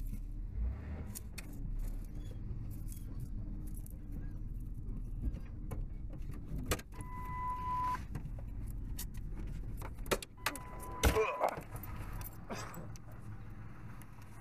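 Pickup truck's engine running low as the truck creeps slowly over dirt, heard from inside the cab. A steady electronic beep sounds about seven seconds in and again around eleven seconds, and near the end come sharp clicks and knocks with a jangle of keys.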